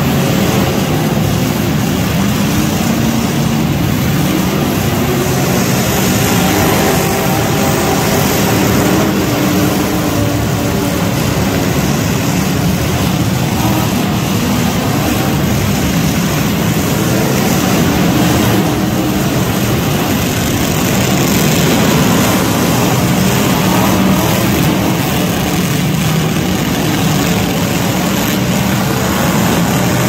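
Engines of many demolition derby pickup trucks running and revving at once, a loud, steady din that echoes around a large indoor arena.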